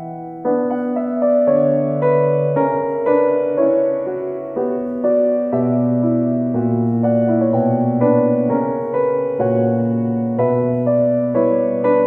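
Background piano music: a slow, gentle melody of struck notes over held bass notes.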